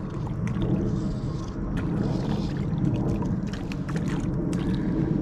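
Low, steady rumble of handling noise on a body-worn camera, with scattered small clicks and rustles as fly line is pulled in by hand while a fish is played on a fly rod.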